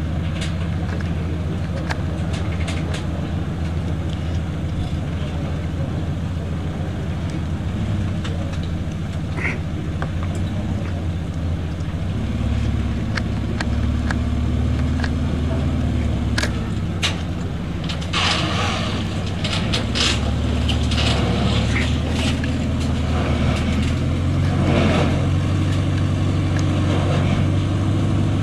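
Volkswagen Amarok's four-cylinder TDI diesel engine running at low revs as the pickup crawls over steel ramps, its note rising and falling under load. Scattered sharp clicks come through, mostly in the second half.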